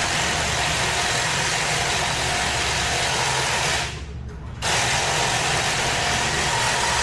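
Compressed-air blow gun hissing in two long blasts, with a short break about four seconds in when the trigger is let go, blowing dirt off trimmer parts.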